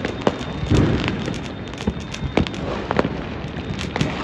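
Fireworks and firecrackers going off continuously: a dense crackling haze with sharp bangs scattered all through, and a heavier boom just under a second in.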